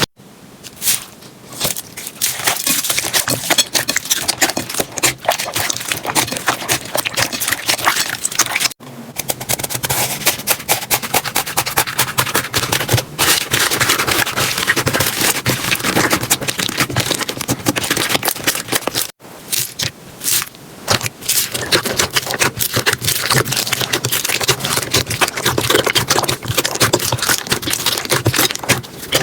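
Slime being played with, crackling and popping in a dense run of rapid clicks, broken by brief cuts about nine and nineteen seconds in.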